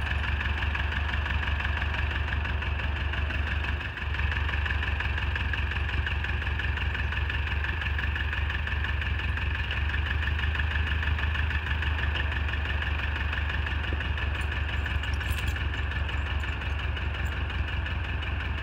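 Ford 8N tractor's four-cylinder engine running steadily at low speed as the tractor is driven slowly forward onto tire chains laid out on the snow, with a brief dip about four seconds in.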